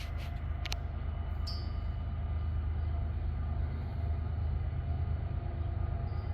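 Norfolk Southern coal train's diesel locomotives running with a steady low rumble and a few steady engine tones above it, with a couple of light clicks in the first second.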